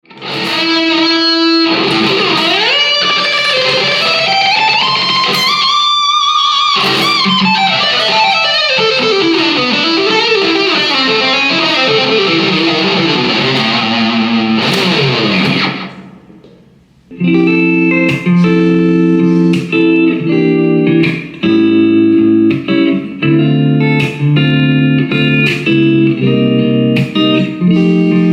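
Sire H7V electric guitar played through an amplifier: a sustained single-note lead line with long pitch slides up and down for about sixteen seconds, then after a short break, rhythmic chords.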